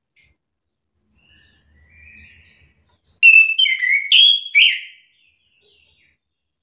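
Chestnut-capped thrush (anis kembang) singing: a faint short phrase about two seconds in, then a loud burst of clear whistled notes, several sliding downward, lasting under two seconds.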